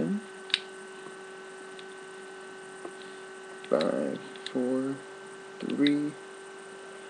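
Steady electrical mains hum, with a sharp click about half a second in and a few fainter clicks from the plastic keys of a 12-key matrix keypad being pressed. A man's voice says a few short words in the second half.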